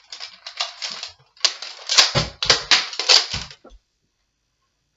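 Plastic Nerf blaster being worked by hand, a quick run of clicks and clatter with a few dull knocks, as a jam is being cleared; it stops a little before the end.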